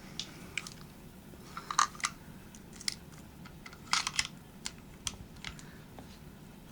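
Small metal parts of a Ruger Mark II .22 pistol clicking and knocking as they are handled and worked into place during reassembly. The clicks are scattered and irregular, with louder clusters about two seconds and four seconds in.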